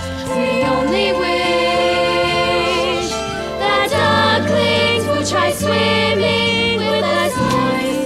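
Live pit band playing an instrumental passage of a musical-theatre song, with sustained chords that change every second or two under a moving melody.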